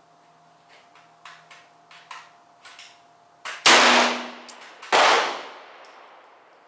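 .44 Special Bisley revolver firing two shots about a second and a half apart, each a sharp blast with a ringing echo. Several faint sharp knocks come before them.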